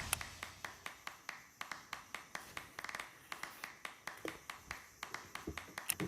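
Rapid, irregular sharp clicks and taps, several a second, fairly faint.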